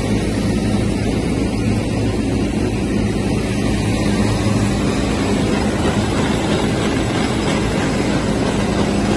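FS SHARK N1100 corrugated-box inspection machine running: a steady mechanical drone from its belt conveyor and motors, with a constant low hum.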